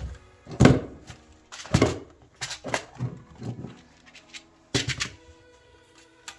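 Background music with about six sharp knocks and clunks of hand tools and parts being handled, the loudest about half a second and two seconds in.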